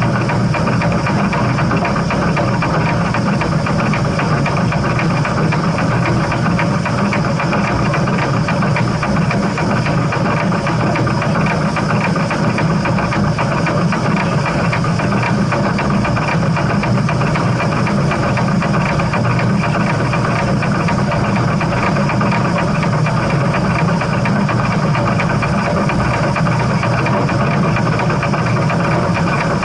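Steam train running with a steady, even rumble and rattle, with no separate exhaust beats standing out.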